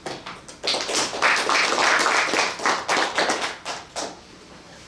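A small group of people applauding: dense hand clapping that starts within the first second, keeps up for about three seconds and tails off about four seconds in.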